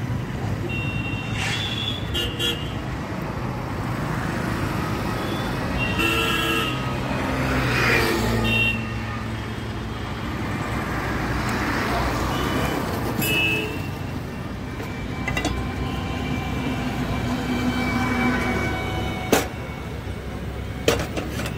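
Road traffic passing steadily, with several short vehicle horn toots at intervals. Two sharp clicks near the end.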